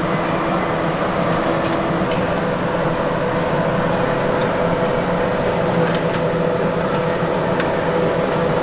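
A steady machine hum with several constant tones over a noisy rush, like a motor or fan running without change, with a few faint clicks.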